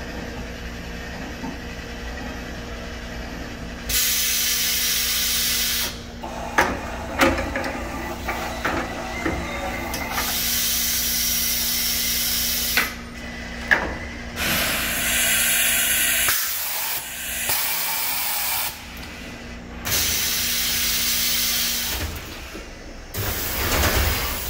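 Haas EC-630 horizontal machining center's side-mount tool changer cycling: several bursts of compressed-air hiss, each a second or two long, with metallic clunks and clicks between them, over a steady machine hum.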